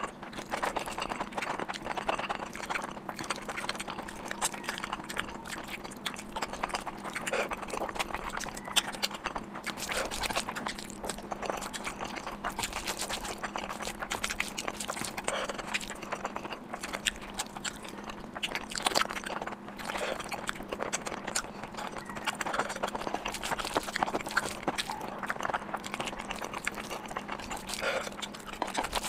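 Close-miked chewing and mouth sounds of a person eating: a steady run of irregular wet smacks and clicks, with a few louder bites.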